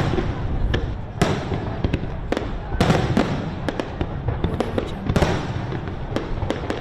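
Fireworks exploding: a dense barrage of booming shell bursts, with crackling and sharp pops between them. Big bangs come about a second, two seconds and five seconds in.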